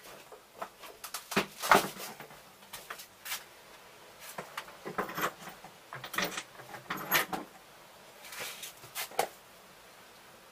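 Irregular knocks and clatter of objects being handled, coming in several short bursts, the loudest about two seconds in.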